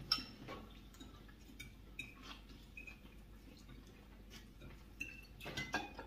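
Forks and chopsticks clinking lightly against plates as people eat: scattered faint ticks and a few short pings, with a slightly louder clatter near the end.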